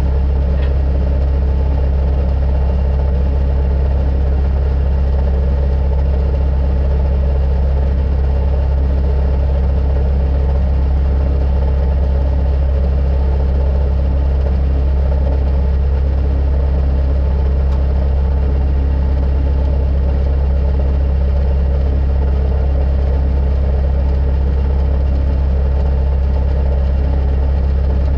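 Skid-steer loader's engine idling steadily, a constant low drone heard close from the cab.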